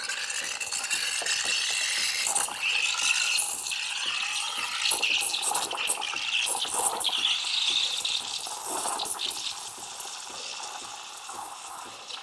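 Steam wand of a Breville Barista Express hissing into milk in a small jug, a steady hiss with a wavering whistle-like tone on top as the milk is steamed and frothed. It eases somewhat near the end.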